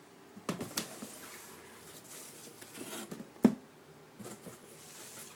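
Shoebox and packaging being handled: rustling with a few clicks and knocks, the loudest a sharp knock about three and a half seconds in.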